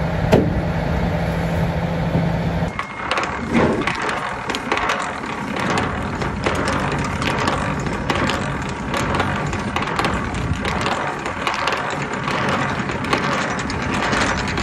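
A truck engine idling with a steady low hum for the first few seconds. It breaks off abruptly and gives way to a long run of irregular crunching and scraping noises.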